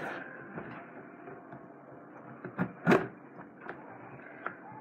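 A taped cardboard shipping box being handled and worked at by hand: scraping and rustling of cardboard and packing tape, with small clicks and one loud sharp sound about three seconds in.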